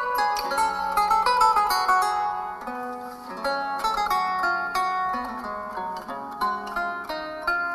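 A Google Pixel 3a XL ringtone from its Pixel sounds set playing: a quick melody of short plucked-sounding notes.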